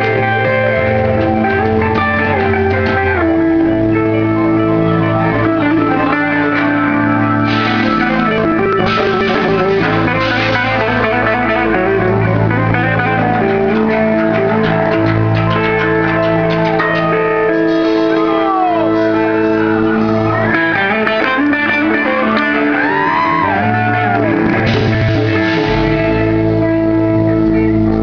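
Blues-rock band playing live through the stage PA: electric guitar over bass and drums, with notes bent up and down in the second half.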